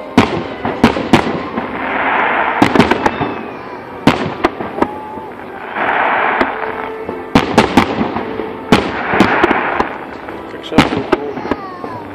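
Aerial fireworks display: large shells bursting overhead in a rapid run of sharp bangs and pops, broken by four swells of hiss about a second long.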